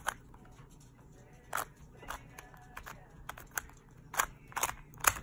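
Rubik's-brand 2x2 cube being scrambled by hand: quick twists of the plastic layers give a string of sharp, irregular clicks.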